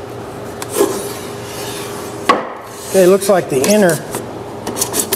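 Cedar boards of a folding table knocking and rubbing together as its legs and braces are folded down by hand, with a sharp wooden knock a little over two seconds in. A short wavering pitched sound follows about three seconds in and is the loudest part, then a few light clicks near the end.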